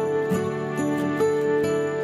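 Background instrumental music: held notes over a steady beat of short, bright, high percussion hits.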